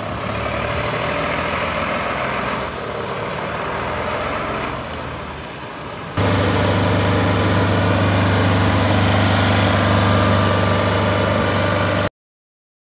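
Scania P92M fire truck's diesel engine running as the truck pulls slowly away. About six seconds in, a louder, steady engine sound with a strong low hum takes over: the truck's portable generator running. It cuts off suddenly near the end.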